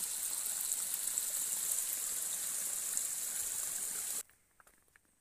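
Small stream running over rocks, a steady rushing hiss that cuts off abruptly about four seconds in.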